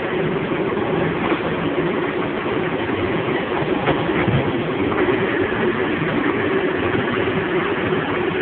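Steady mechanical din of grape-processing machinery running, with a few faint knocks now and then.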